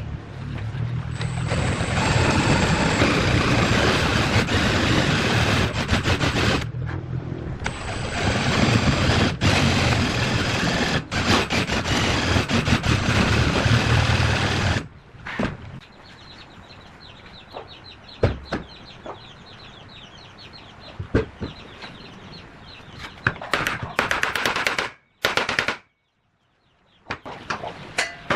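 A power tool runs loudly and steadily for about fifteen seconds, stopping briefly once, then cuts out. After that come scattered clicks and knocks, with chickens clucking in the background.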